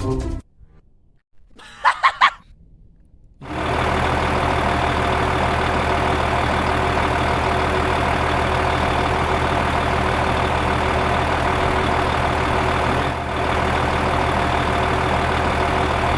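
An engine idling steadily, starting abruptly about three and a half seconds in, after music stops and a short pitched blip sounds near two seconds.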